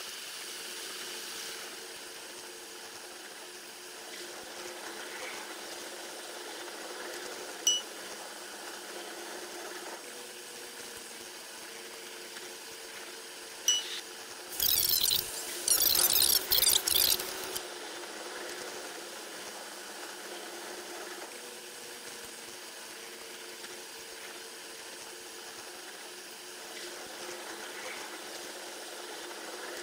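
Train running noise played at ten times speed, a steady rushing hiss with faint steady tones. There are two sharp clicks, then about halfway through a loud, high, rattling burst lasting about three seconds.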